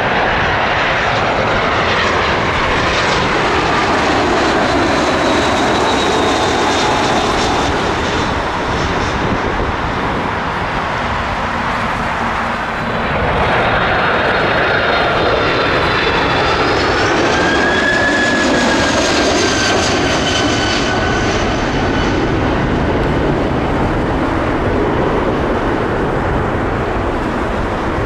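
Airbus A319's jet engines passing low overhead on final approach, their whine falling in pitch as it goes by. From about halfway a Boeing 767-400's engines grow louder on short final, their whine rising as they spool up to go-around thrust and the airliner aborts its landing.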